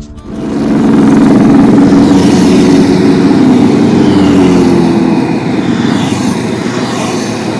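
Road traffic: a motor vehicle passing close by, coming up loud within the first half second and easing off a little after about five seconds.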